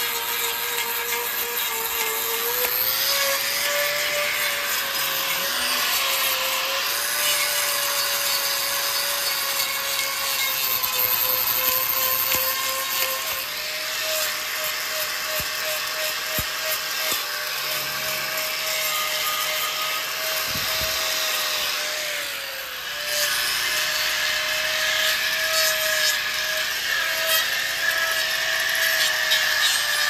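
Angle grinder with a trimming disc grinding down a cow's hoof horn: a steady motor whine over a rasping hiss, its pitch wavering and dipping briefly twice as the disc works the hoof.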